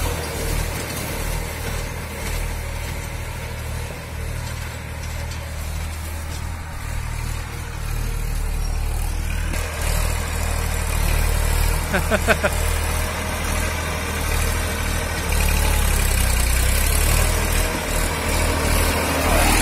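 Massey Ferguson 241 tractor's diesel engine running steadily under load as it pulls a disc harrow through banana stalks. It grows louder in the second half as the tractor comes closer.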